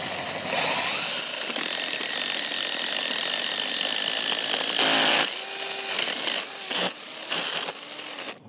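DeWalt 20V cordless drill driving a 7/8-inch spade bit through the wood sheathing behind a brick wall. The motor winds up just after the start and runs under load as the bit chews into the wood, loudest about five seconds in. It then runs lighter until it stops near the end.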